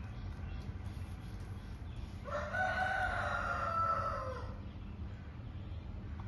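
A single long drawn-out bird call, about two seconds, holding its pitch then falling slightly as it ends, over a steady low rumble.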